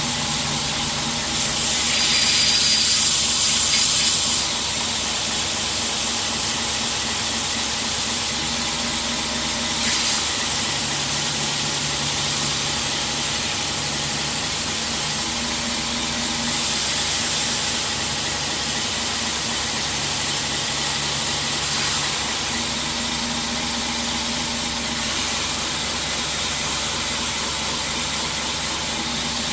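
A 2x72 belt grinder comes up to speed and runs steadily, its motor humming under a strong hiss from the abrasive belt. A cheap latex shoe sole is pressed against the running belt to rub wood dust out of the clogged grit, and the hiss grows louder and brighter for a couple of seconds early on.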